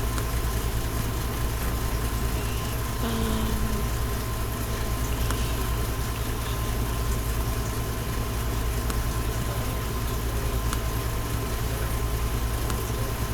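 Steady low droning hum of a running motor, with a thin high tone held over it and a few faint clicks.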